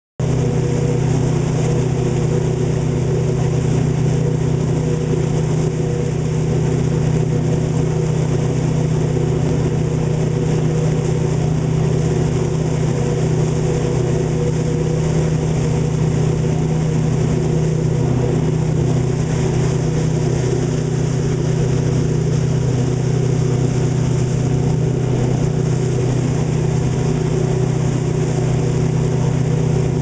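Boat motor running at a steady, unchanging speed, heard from on board, over an even hiss.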